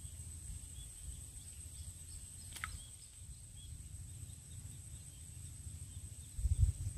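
Open rice-field ambience: a steady high-pitched insect drone over a low, fluctuating wind rumble on the microphone. A single short descending whistle comes about two and a half seconds in, and the low rumble grows louder near the end.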